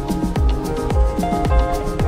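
Background music with a steady beat: a deep bass drum that drops in pitch on each hit, about two hits a second, under held melodic notes and light high percussion.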